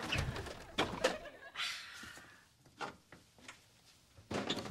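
A refrigerator door being pulled open, with a few short knocks and clicks around it.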